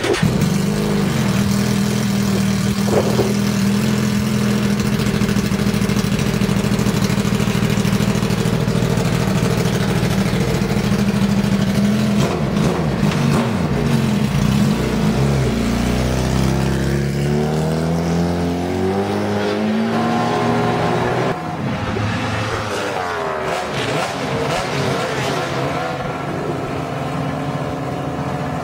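Suzuki GSX-R1000 race bike's inline-four engine idling steadily. From a bit under halfway, other motorcycle engines at different speeds join in, their pitches sliding up and down as they are revved gently.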